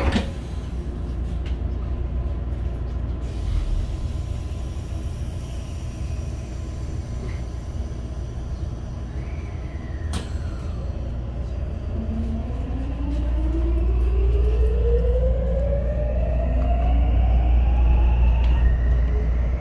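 JR West 521 series electric train hums at standstill after a thud at the very start. From about twelve seconds in, the traction inverter whines in several tones that climb steadily together as the train pulls away. The uploader takes the unit for a Mitsubishi IGBT, with a sound like the 323 series' SiC units.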